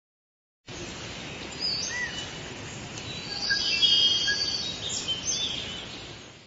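Outdoor ambience: a steady background hiss with birds chirping, short whistled calls that come most often a couple of seconds in. It cuts in suddenly after a brief silence.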